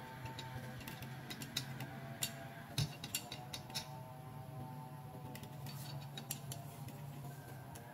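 Small plastic clicks and taps from a fashion doll being handled, its jointed arms moved, mostly in the first half, over soft background music.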